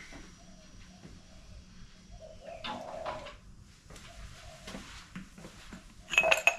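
Doves cooing softly in the background. A short, loud clatter of clicks comes about six seconds in.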